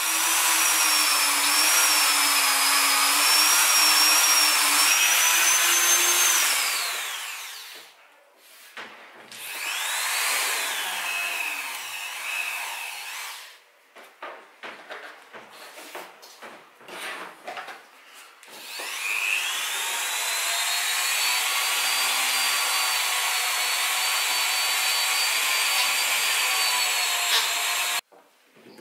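Handheld rotary tool running at high speed against the edge of a kydex sheath, its whine wavering in pitch as the bit meets the plastic. It winds down after about six seconds, spins up briefly again, then after several seconds of small handling knocks starts up with a rising whine and runs steadily until it cuts off suddenly near the end.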